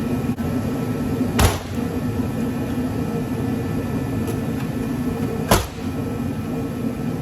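Steady machine hum with two sharp knocks, about four seconds apart, from scrap parts being handled.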